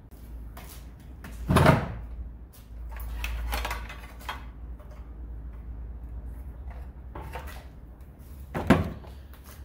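Workshop handling noise: a sheet of plywood knocked and slid across a wooden workbench, and an electric circular saw set down on it. A loud knock comes about one and a half seconds in, a scraping stretch follows, and another loud thud comes near the end.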